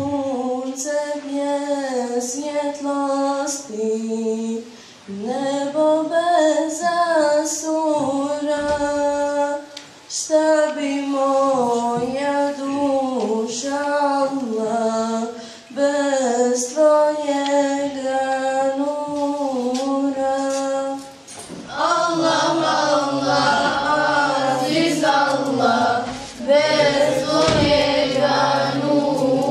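A girl singing an unaccompanied Islamic devotional song (ilahi) into a microphone, in long melodic phrases with short breaths between them. About two-thirds of the way in, a group of girls' voices joins in chorus.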